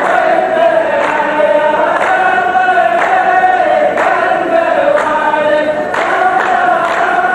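A chorus of men's voices chanting a poet's verse together in long, drawn-out phrases, with no instruments. This is the row chant of a Saudi muhawara (qalta) poetry duel, where the lines of men repeat the poet's verse.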